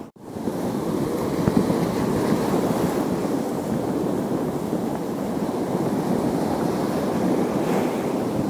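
Sea surf washing against a rocky shore, with wind rumbling on the microphone. The sound drops out for a moment right at the start, then runs on evenly.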